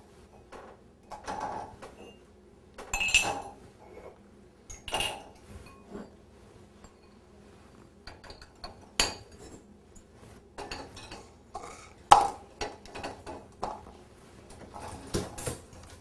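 Cups and bowls clinking and knocking as they are set into a dishwasher's top rack: a string of separate knocks, some ringing briefly, the sharpest about twelve seconds in.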